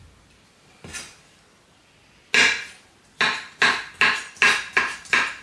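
Kitchen knife chopping through a cucumber on a wooden cutting board: a single knock about a second in, then a loud chop, then a quick run of six chops, about three a second.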